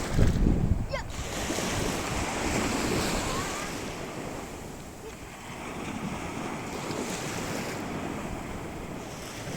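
Sea waves washing onto a sandy beach, swelling and easing, with wind buffeting the microphone, heaviest in the first second.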